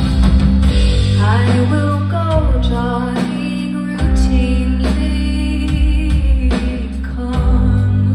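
Live band music: steady bass notes and guitar with a woman singing lead, her voice coming in about a second in.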